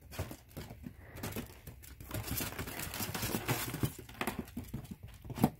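A ferret digging and scrabbling in a tray of packed snow and on a plastic mat: a run of small scratchy crunches and crinkles, with one sharper click near the end.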